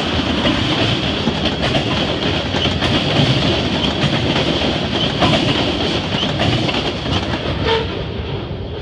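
Freight train cars rolling past, with steel wheels clattering over rail joints and the diamond crossing in a steady clickety-clack. The sound fades near the end as the last car goes by.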